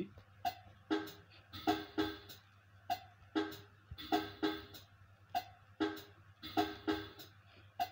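Programmed trap-style drum loop from FL Studio played back through laptop speakers: pitched conga hits with snare and added hi-hat clicks, about two to three hits a second in a steady rhythm.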